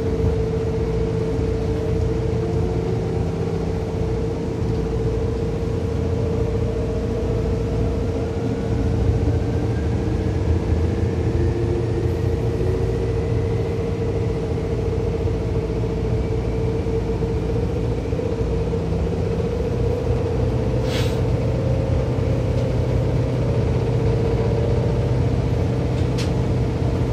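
Seibu 2000 series electric train running, heard from inside the car. Its motor and gear whine rises in pitch as the train picks up speed, over a low rumble of wheels on rail and a steady tone. A brief hiss comes about 21 seconds in.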